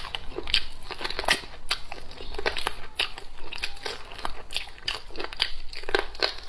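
Close-up chewing and biting of braised pork trotter, with many short, irregular crunching clicks.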